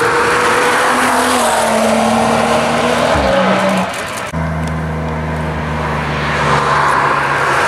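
Track-day hatchback engines heard from the trackside: a BMW 1 Series running at a steady note through a curve, its pitch shifting about three seconds in, then an abrupt cut about four seconds in to an Audi A1's engine droning steadily as it approaches.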